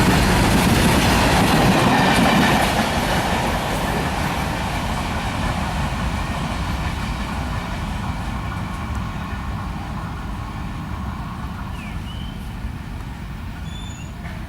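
Wagons of a heavily loaded freight train rolling past, their wheels clattering over the rail joints. The sound drops about two and a half seconds in and then fades steadily as the train draws away.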